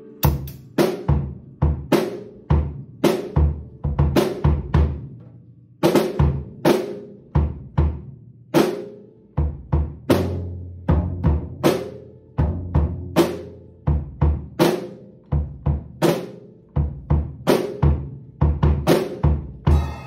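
Yamaha birch drum kit played as a groove with fills. Bass drum, snare and toms are struck about twice a second, the toms ringing out after their strokes.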